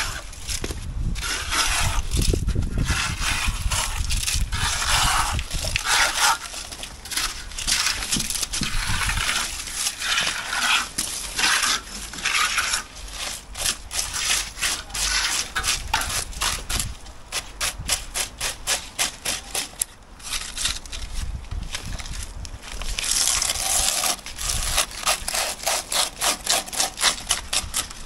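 Hand trowel scraping wet concrete along the edge of a freshly tamped slab, in repeated strokes that come in quick runs in places.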